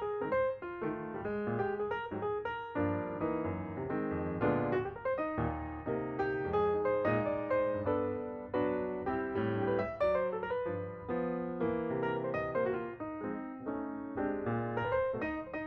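Background piano music: a steady flow of chords and melody notes.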